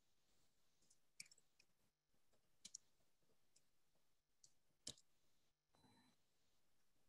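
Near silence broken by about five faint, scattered clicks from someone working a computer, with a brief soft rustle near the end.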